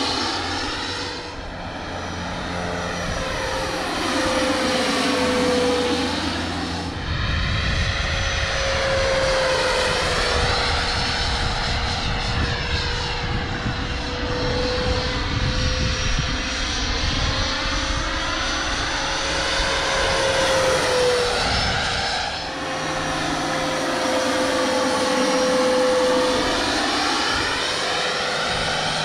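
Radio-controlled scale MD 600N helicopter in flight: a steady whine held at one pitch over a rush of rotor noise that sweeps up and down as it flies around and passes by. It comes down to land near the end.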